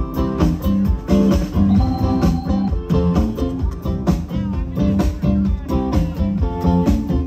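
Live band playing an instrumental passage: guitar over bass and drums with a steady beat.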